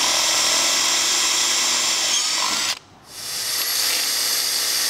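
Cordless drill with a long bit running at full speed with a steady whine, boring a hole through a plastic radiator scoop. It cuts off suddenly a little under three seconds in, then spins back up a moment later and runs on.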